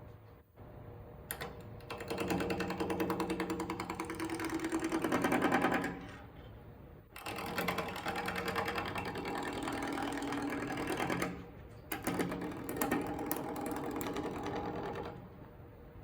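Wood lathe running with a turning tool roughing square stock round. There are three stretches of rapid, even chattering as the tool meets the spinning corners, with the lathe still running in the short quieter gaps between them.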